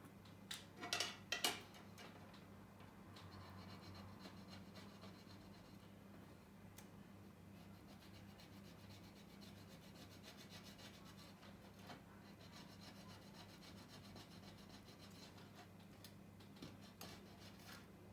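A few sharp clicks about a second in, then faint scraping of a small hand tool on an iPhone 8 Plus rear housing, coming and going.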